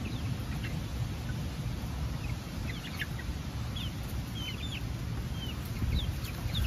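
Young hens giving a handful of short, high chirps and clucks, most of them a few seconds in, over a steady low rumble.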